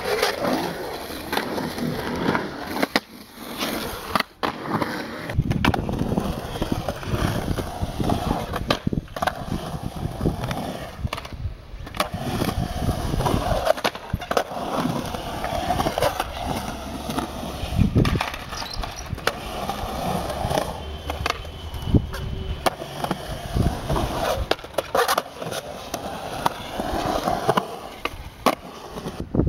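Skateboard wheels rolling and carving through a concrete bowl, with many sharp clacks and knocks as boards and trucks hit the coping and land.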